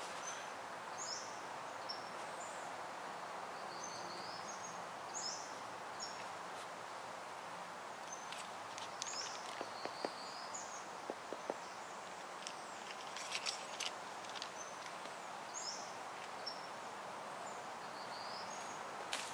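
Forest ambience: a steady hiss under repeated short, high bird chirps, with a few sharp clicks or snaps about halfway through.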